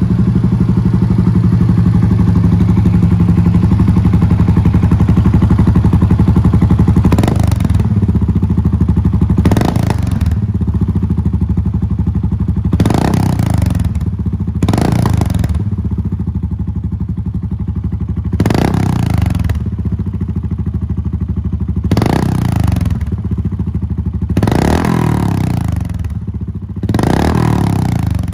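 2013 Suzuki S40 Boulevard's single-cylinder four-stroke engine running loud through a Delkevic slip-on exhaust with the baffle installed. It idles steadily, then is revved in about eight short throttle blips, each climbing quickly and falling back to idle.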